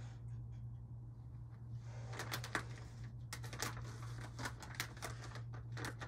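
Tissues being pulled from a cardboard box and crumpled in the hands: a run of crisp rustling and crinkling that starts about two seconds in, over a steady low hum.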